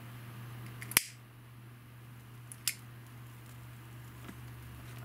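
A handheld lighter is clicked twice to light the line: a sharp click about a second in and a smaller one just past halfway, each with a faint tick just before it. A low steady hum runs underneath.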